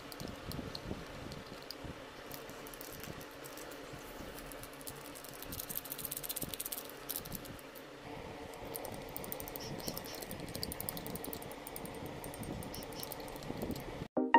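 Crinkling and crackling of a foil drink-powder sachet handled by hand, with irregular small clicks and taps.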